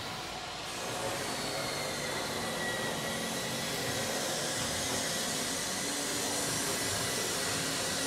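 Steady whir of a motor-driven machine, with a faint high whine that settles slightly lower in pitch over the first few seconds.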